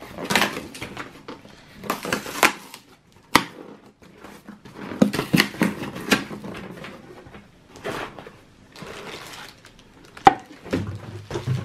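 Cardboard box being opened by hand: flaps pulled up and torn, with irregular bursts of cardboard rustling, ripping and scraping. Two sharp knocks, about three seconds in and again near the end.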